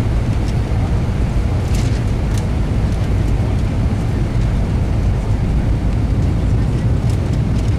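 Steady low cabin roar of an Airbus A320 in flight on its landing approach, with engine and airflow noise heard from a window seat inside the cabin and the flaps extended. A couple of faint light ticks about two seconds in.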